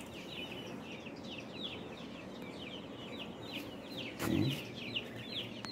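Young poultry peeping in a rapid, even run of short high chirps, each sliding downward, about five or six a second. About four seconds in, one lower call from a grown bird briefly stands out.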